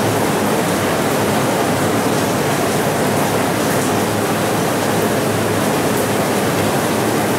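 Loud, steady rushing noise with a faint low hum underneath, cutting in and out abruptly.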